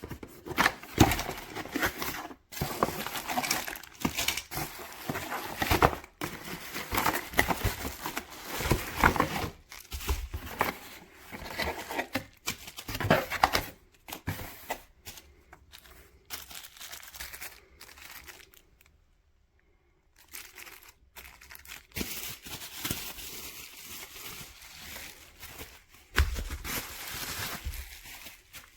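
Irregular crinkling and rustling handling noise, dense and uneven, with a brief pause about two-thirds of the way through.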